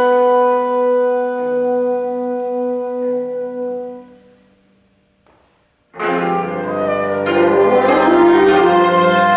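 Contemporary chamber ensemble of 25-string kayageum, winds, strings and percussion playing: held notes fade away to a brief silence about four seconds in, then the whole ensemble comes back in suddenly and loudly about six seconds in, with a dense, busy texture.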